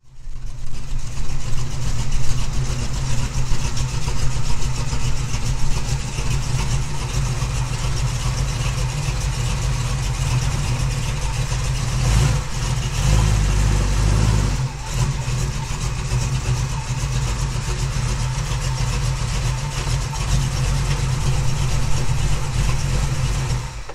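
Small-block Chevy 350 V8 of a 1936 Chevrolet coupe hot rod running through its exhaust, engine speed varying and swelling briefly about halfway through.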